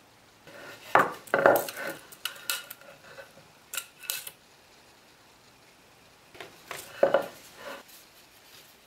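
A pine board and a steel tape measure knocking and clattering on a wooden workbench as they are handled and set down. Sharp knocks come about a second in and again about seven seconds in, with lighter clicks between.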